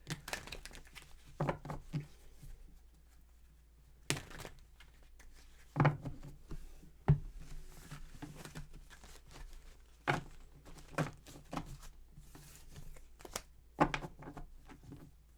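Tarot cards being handled: papery rustling, with a sharp tap or slap as a card is set down every second or two. The loudest taps come about six and seven seconds in, and again near the end.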